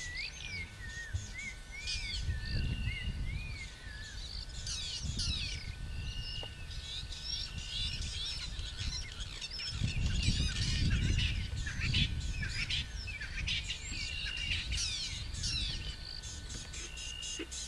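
Several wild birds calling and singing in the bush, a busy mix of chirps, trills and short repeated whistles, with a faint steady high tone underneath. A low rumble comes and goes and is loudest about ten seconds in.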